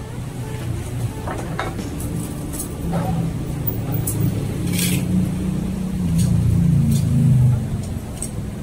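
Metal ladle and noodle strainers clinking against a stainless-steel soup pot, a handful of short sharp clinks spread through, over a steady low rumble that swells a little past the middle.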